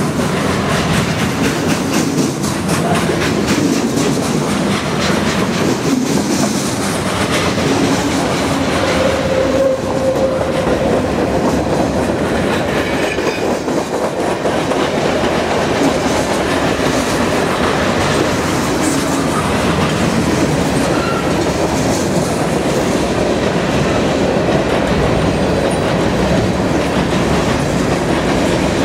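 Freight cars rolling past close by: a steady, loud rumble of steel wheels on rail, with continuous clicking as the wheels pass over the rail joints.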